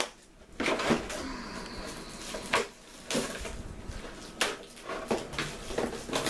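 Clear plastic packaging bag crinkling and rustling as it is handled and pulled open, in irregular crackles with several sharper loud crinkles.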